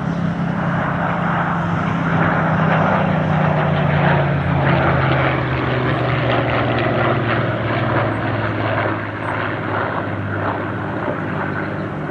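Lockheed P-38 Lightning's twin Allison V12 engines running loud on a display pass, the engine note falling slowly in pitch as it goes by.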